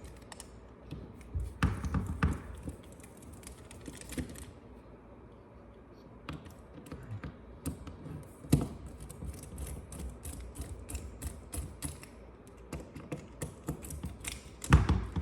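Irregular small clicks and taps of hands and tools handling the parts of an HDB68 .68-calibre less-lethal revolver as it is partly opened, with a few louder knocks, about a second and a half in, near the middle and near the end.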